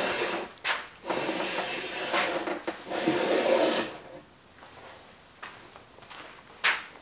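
Low-angle jack plane drawn along the edge of a thick walnut board in several long, steady hissing strokes over the first four seconds, then quieter, with one brief scrape near the end. These are corrective passes to take the slant out of the edge after the plane's blade was re-squared.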